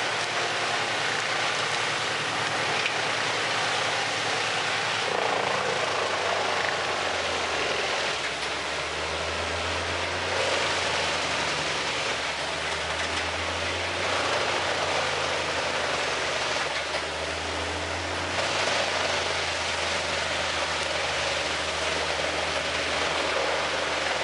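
Large industrial wood chipper running under load as logs are fed through, a dense steady roar of machinery. Its low engine note swells and eases several times.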